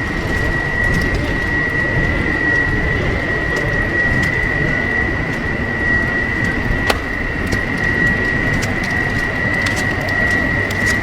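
Street ambience in a snowstorm: a steady rushing noise of falling wet snow, with a constant high-pitched tone throughout and scattered light clicks, one sharper click about seven seconds in.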